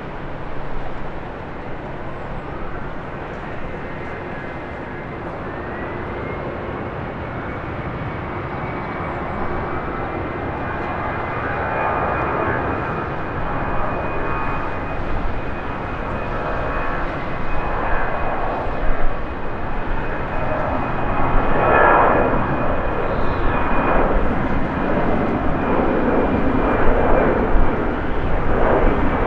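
Airbus A319-100 jet engines spooling up for takeoff: a whine rises over a few seconds, then holds steady, while the jet noise builds gradually louder.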